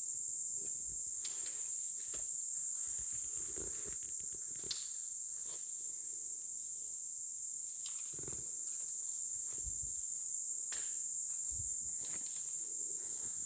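Scattered rustles, crackles and soft thumps, as of footsteps and movement through forest undergrowth, over a steady high-pitched hiss.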